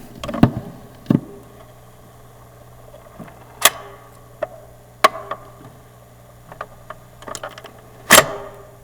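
Sharp mechanical clacks from an old typewriter being handled: a handful of single strikes at irregular intervals, the loudest near the end, over a low steady hum.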